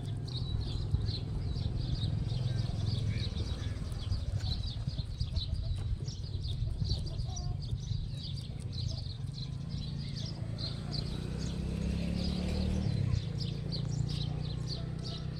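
Rabbits chewing leafy green stems and orange flowers: rapid crisp crunching clicks, several a second, over a steady low rumble.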